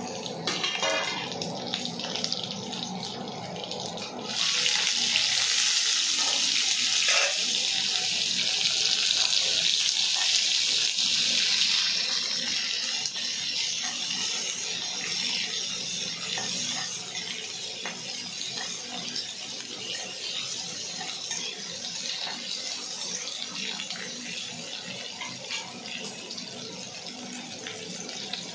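Hot oil with whole spices sizzling in a kadai. About four seconds in, the sizzle turns suddenly loud as halved green gourds go into the oil, then eases to a steadier, quieter frying sizzle after about twelve seconds. Light scrapes and clicks of a wooden spatula stirring come through it.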